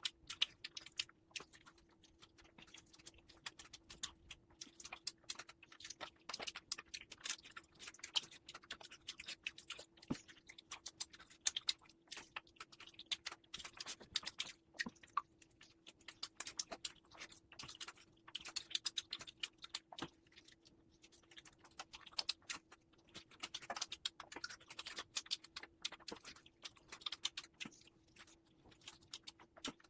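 Close-miked chewing and mouth sounds of eating oily mutton fat curry with rice: a dense, irregular run of small wet clicks and smacks, over a faint steady hum.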